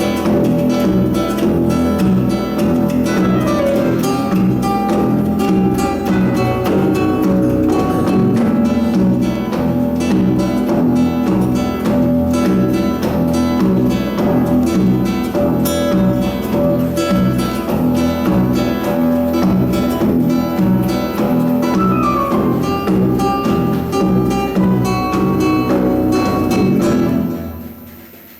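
Music led by fast, evenly strummed acoustic guitar, dropping away about a second before the end.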